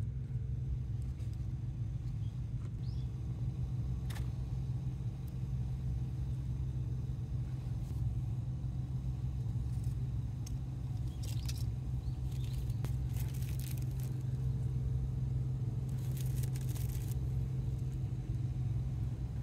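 A steady low hum throughout. Over it come a few light clicks and short rustles as a burger is put together by hand: metal tongs setting a patty onto the bun, then a cheese slice being handled and laid on.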